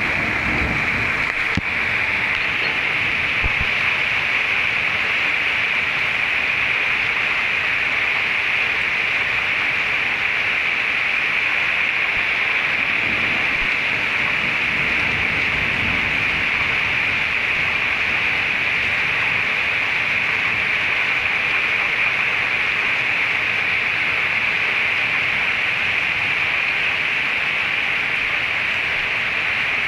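Rain falling steadily during a thunderstorm, an even hiss with no break.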